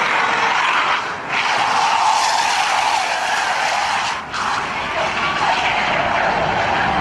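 Car tyres screeching in long continuous skids as a car drifts sideways at speed, with two brief dropouts, about a second in and about four seconds in.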